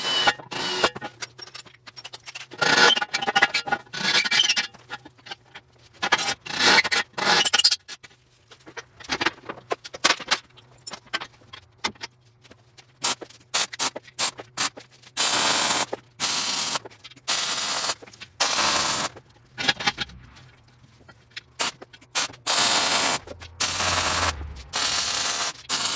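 A cordless drill runs in short bursts on steel, with metal parts knocked about on a steel bench. Then, from about halfway, comes a string of about five short MIG tack welds, each about a second of even crackling hiss, over a faint steady hum.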